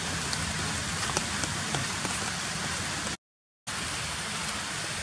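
Steady rain-like hiss with a few faint ticks. The sound drops out to silence for about half a second a little after three seconds in.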